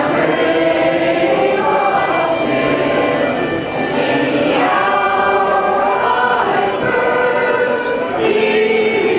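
Voices singing a hymn together, with long held notes that move to a new pitch every second or so.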